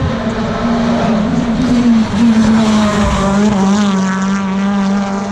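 BTCC touring cars' two-litre turbocharged four-cylinder engines running hard on track, loud and steady, with engine notes wavering up and down in pitch partway through as the cars go by.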